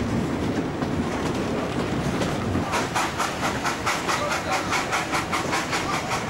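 Narrow-gauge Steyrtalbahn steam train running, heard from aboard: a steady rumble, then from about three seconds in an even, rapid beat of about five strokes a second from the locomotive's exhaust.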